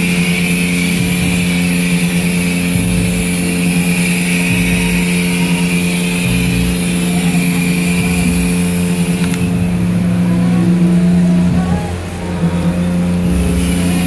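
Self-serve car wash bay's pump running with a steady hum while the spray gun hisses out tire cleaner. The hiss thins out about nine seconds in, and the level dips briefly near the end.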